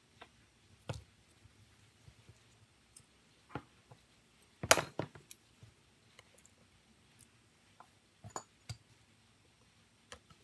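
Scattered light clicks and taps of small metal repair tools, tweezers and then a precision screwdriver, working inside a Samsung Galaxy S7 Edge's frame, with a louder cluster of clicks about halfway through.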